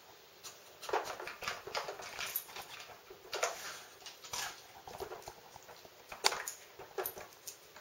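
A dog nosing and pawing at a plastic treat-puzzle toy, the Nina Ottosson Dog Casino, tugging at one of its half-closed drawers: irregular plastic clicks, knocks and scuffles, with one sharp click about six seconds in.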